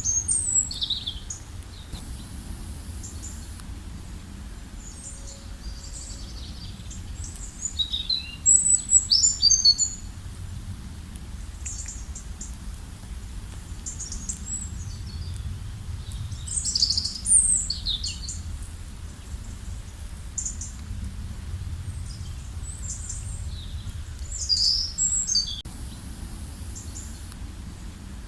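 Small birds chirping and calling in short flurries of high, quick notes, with louder bursts near the start, about a third of the way in, a little past halfway, and near the end. A steady low rumble runs underneath.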